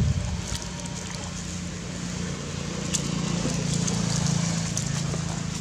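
A steady low engine-like drone that swells slightly in the middle, with a few faint clicks over it.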